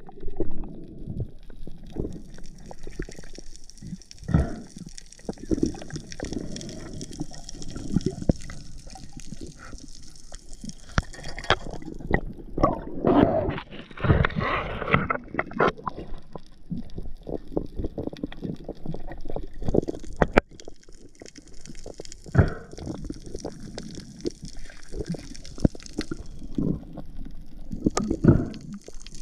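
Water heard through an underwater camera: a steady low rushing and gurgling of water moving past it, with many sharp clicks and knocks throughout. There is a louder surge of rushing water about halfway through.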